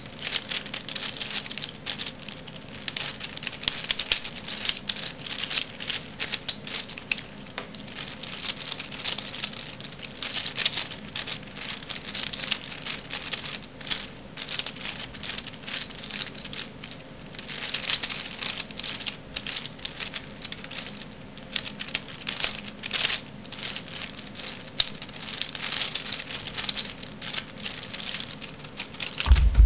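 Plastic layers of a V-Cube 5 (5x5x5 puzzle cube) being turned by hand: a continuous stream of small clicks and scrapes with brief pauses between bursts of turns. A single loud thump comes right at the end.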